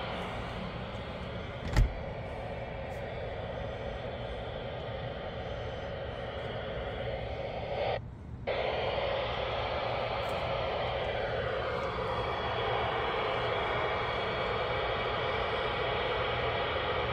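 Hissing static from a Realistic PRO-43 handheld scanner's speaker, tuned slightly off the ISS slow-scan TV downlink, so no clean signal is coming through. A single knock sounds about two seconds in, and the hiss cuts out for about half a second just past the middle.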